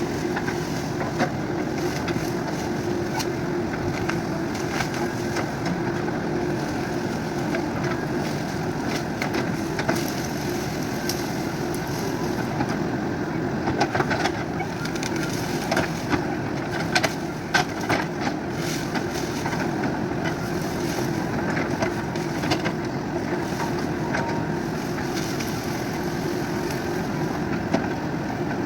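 JCB 3DX backhoe loader's diesel engine running steadily while the machine works, with scattered sharp knocks and clanks, most of them in the middle of the stretch.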